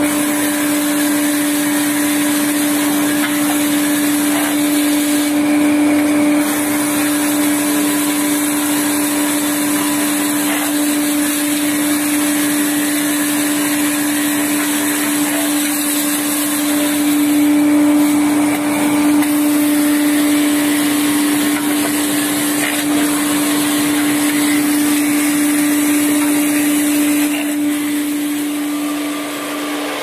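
Broom-handle rounding machine running, its motor and cutter head giving a steady hum over a constant hiss as square wooden sticks are fed through the feed rollers to be turned round.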